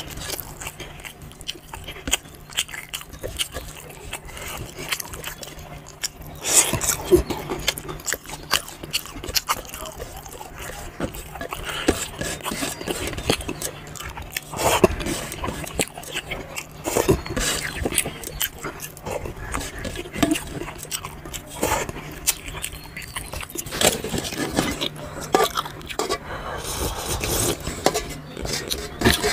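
Close-up eating sounds: wet chewing and lip-smacking of rice and dal eaten by hand, with fingers scraping a steel plate in irregular short strokes.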